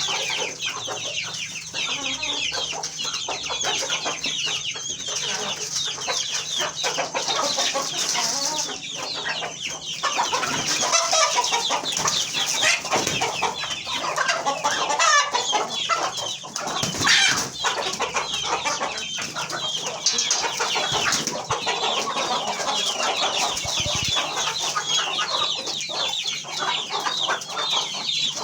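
A large flock of chickens, many birds calling and clucking at once in a dense, unbroken chorus that swells a little about halfway through.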